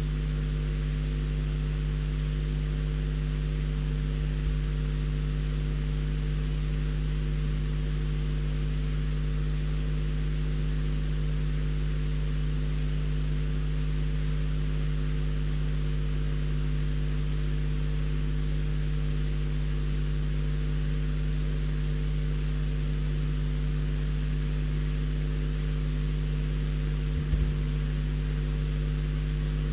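Steady electrical hum with hiss from a nest-box webcam's microphone, unchanged throughout, with a brief low knock near the end.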